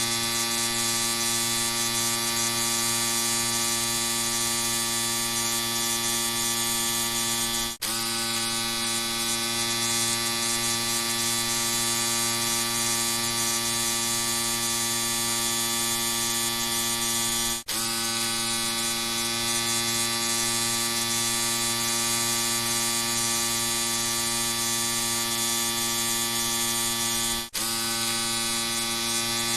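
Electric shaver running with a steady, even buzz. The sound breaks off for a split second about every ten seconds.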